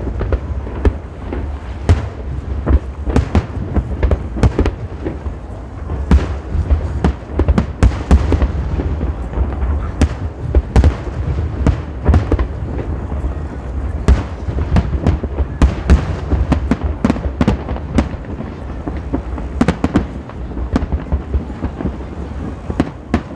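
Aerial fireworks display: a rapid, irregular barrage of sharp shell bursts and bangs, several a second, over a continuous deep rumble of booms.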